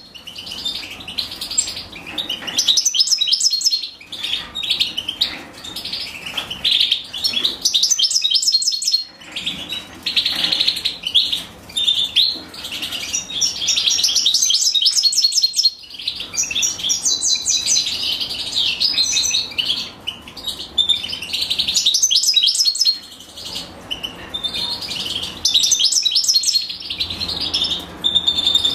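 European goldfinch nestlings begging to be fed by the female: rapid, high-pitched chirping in runs of several seconds broken by short pauses.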